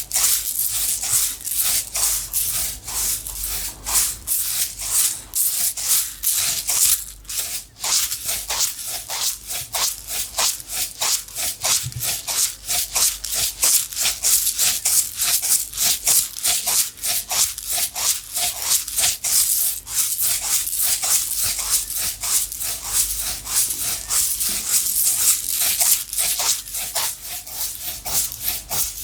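Small dry objects shaken in a container, giving a rhythmic hissing rattle of several shakes a second.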